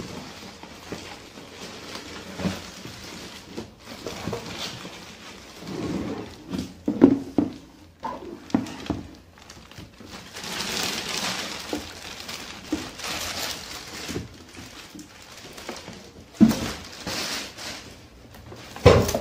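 Clear plastic packaging bag crinkling and rustling as an air fryer is lifted from its cardboard box and unwrapped. Several dull thuds of the appliance and box being handled come in between.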